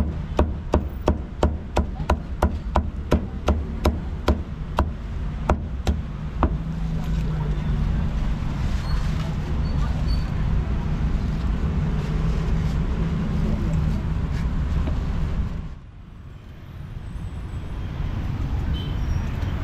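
A cleaver chopping roast meat on a wooden chopping block, about three sharp chops a second, slowing and stopping about six seconds in. Steady street traffic rumbles underneath, with background voices.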